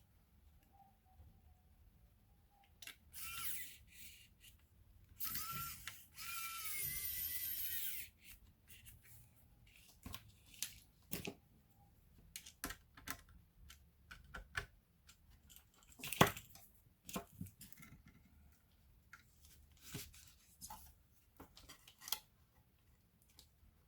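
Hands-on laptop repair sounds: two short whirring, hissing bursts from a small tool in the first eight seconds, then scattered clicks and taps of tools and small plastic and metal parts, with one sharper click about two-thirds of the way through.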